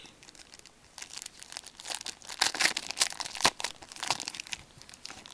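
A hockey card pack's wrapper being torn open and crinkled by hand: an irregular run of crackles and tearing, busiest around the middle.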